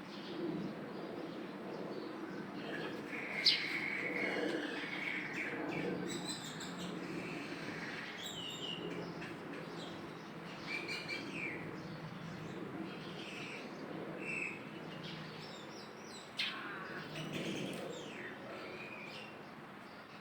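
Baby monkey giving short, high-pitched squeaks and chirps on and off, with two sharp clicks, one about three seconds in and one near the end.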